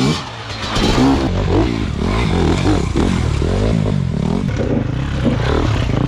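Enduro dirt-bike engines revving hard as riders work the throttle over rough ground, the pitch swooping up and down again and again.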